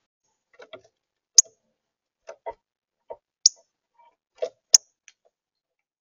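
About ten irregular clicks and knocks with short silences between them, three of them much sharper and louder than the rest: a northern cardinal pecking at seed and shifting its feet on a plastic feeder tray.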